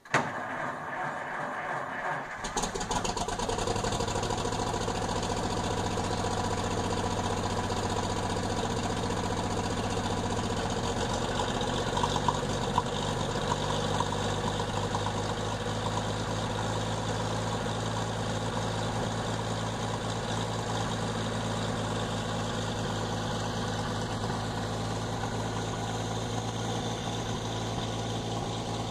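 1956 Diamond T 630 truck engine turned over by the starter for about two seconds, then catching and settling into a steady idle.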